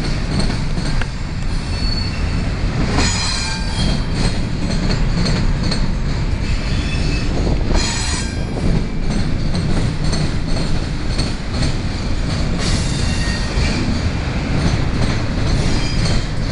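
Double-stack intermodal freight train of container well cars rolling past close by: a steady rumble and clatter of steel wheels on the rails. Short high-pitched metallic wheel squeals cut in about three seconds in, again near the middle, and once more around thirteen seconds.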